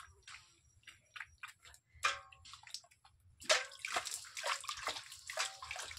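Hands scooping water from a bucket and splashing it onto a face to rinse off face wash. Scattered small splashes and drips at first, one louder splash about two seconds in, then quick repeated splashing through the second half.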